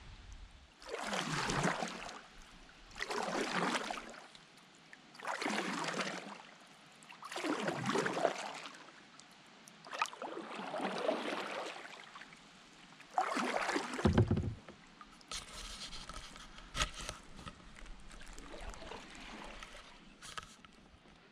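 Kayak paddle strokes splashing in the water: six strokes about two seconds apart, then quieter with a few light clicks and knocks near the end.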